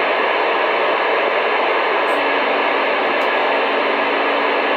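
CB radio receiver putting out a steady, loud static hiss with no voice on the channel, a low hum joining about two seconds in.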